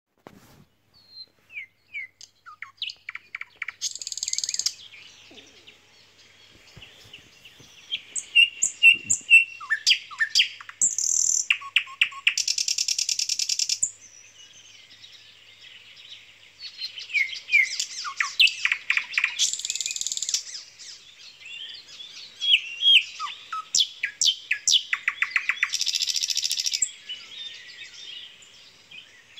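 Songbirds chirping and singing: a run of short, varied chirps and whistled glides, broken every few seconds by a fast rattling trill lasting about a second.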